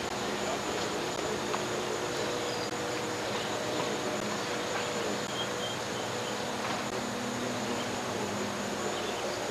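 Steady hiss with a thin high whine and faint low hum, unchanging and with no distinct events: the noise of a black, unrecorded stretch of VHS videotape.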